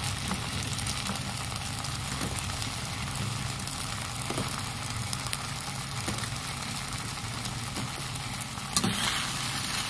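Thick cornflour-thickened Manchurian sauce bubbling and sizzling in a pan as fried vegetable Manchurian balls are added, with scattered light clicks and a louder knock near the end. A low steady hum runs underneath.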